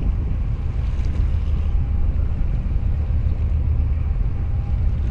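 Steady low rumble of wind buffeting the microphone, over the wash of choppy water.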